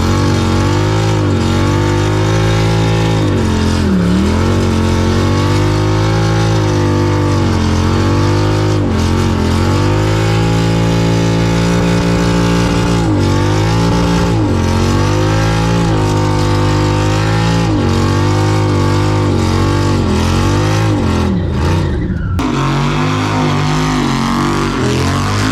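Texas Speed 416ci LS3 V8 running hard, its pitch dropping and climbing back several times as it revs, held steady for a couple of seconds in the middle.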